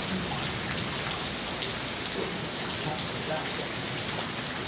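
Rain falling steadily in a thunderstorm, an even hiss with no breaks.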